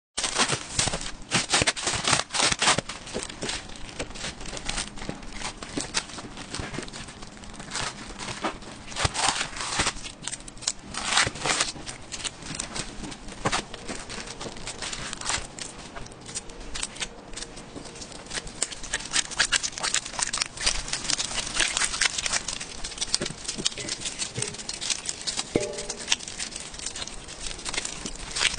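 Food-preparation handling sounds: a knife cutting through long sticks of rice cake (tteok), plastic wrap crinkling, and the sticks being knocked together as they are stacked. It comes as a run of irregular clicks and taps.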